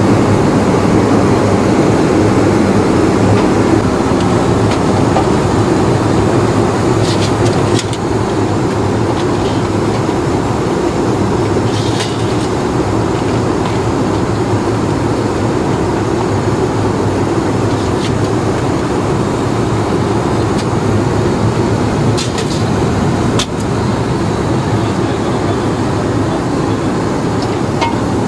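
Steady rushing drone of an Airbus A319 heard from inside the passenger cabin in flight: engine and airflow noise, with a few faint clicks here and there.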